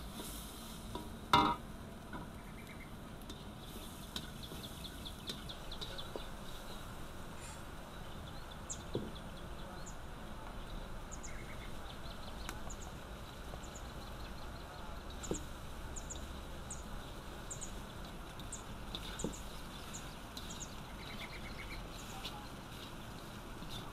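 Birds chirping in short repeated calls over a steady outdoor background, with a few light knocks from a wooden spatula stirring fried rice in a steel wok. There is a brief loud call about a second in.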